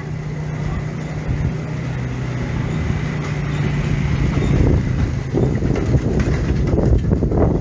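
A motor vehicle's engine running close by with a steady low hum, growing louder and busier in the second half.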